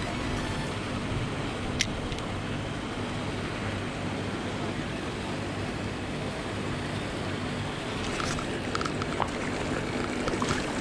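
Steady low motor hum with a constant wash of churning water, from a pond aerator running. A sharp click comes about two seconds in, and a few light clicks come near the end.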